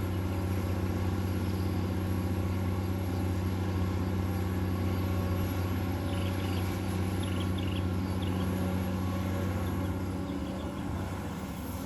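Komatsu PC200-8 hydraulic excavator's six-cylinder diesel engine running with a steady, even drone.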